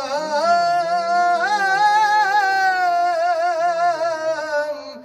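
Urdu devotional salaam chanted without instruments, the voice drawing out one long, wavering melismatic note that bends slowly in pitch, dipping briefly near the end.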